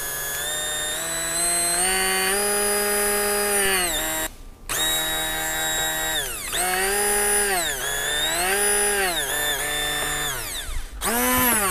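Electric hand blender's motor running with nothing in it, a high whine that climbs and drops in pitch as the variable speed is turned up and down. It stops for about half a second around four seconds in, starts again, and spins down near the end before a short burst.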